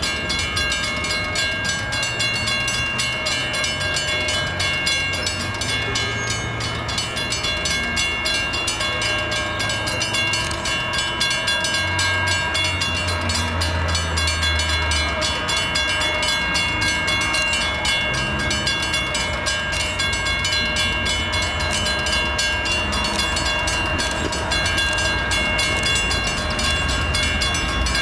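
Railroad grade crossing warning bell ringing continuously in rapid, evenly spaced strokes as a freight train approaches. A low rumble swells briefly about halfway through.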